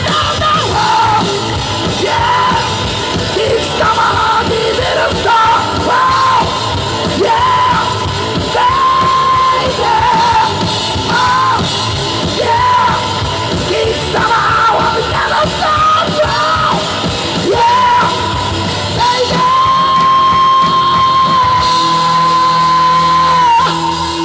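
Live rock band playing loud, with a lead vocalist singing and yelling short phrases over drums and guitars; near the end the singer holds one long, steady high note.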